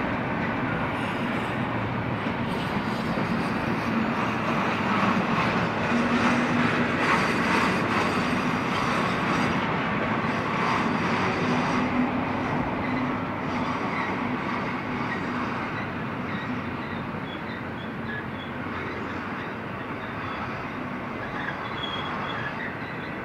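Freight train of empty intermodal well cars and gondolas rolling past: steady rumble and rattle of steel wheels on rail. It is loudest in the middle and eases off a little toward the end.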